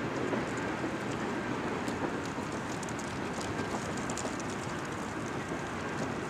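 Double-stack container cars of a long freight train rolling past: a steady rumble of steel wheels on the rails, with faint, brief high-pitched ticks scattered through it.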